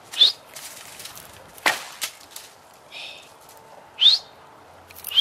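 A recurve bow shot at a rabbit in brush: one sharp snap about a second and a half in, with a few small ticks after it. Short rising bird chirps sound just after the start and again near the end.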